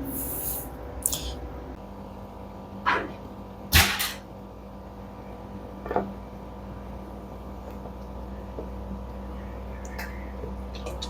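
Scattered clicks and knocks of tools on metal while the screws holding a twin-tub washing machine's gear assembly are undone, the loudest knock about four seconds in, over a faint steady hum.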